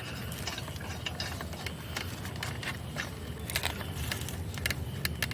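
Wheel nut being turned clockwise onto its stud to refit a car wheel: irregular metallic clicks and scrapes of metal on metal, over a steady low hum.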